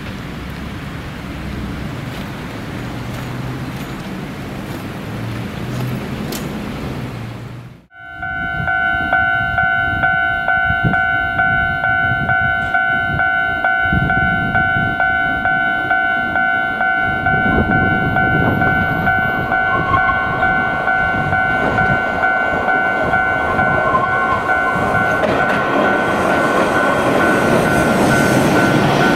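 Hankai Tramway Mo501-type tram running on its rails, a low rumble at first. About eight seconds in the sound cuts out for a moment, then a steady ringing of several tones holds over the tram's rising rail and wheel noise as it approaches. There is a brief high wheel squeal about two-thirds of the way through.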